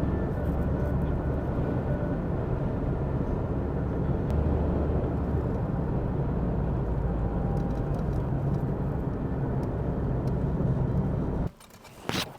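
A car driving, with steady engine and road noise that cuts off abruptly near the end, followed by a short sharp knock.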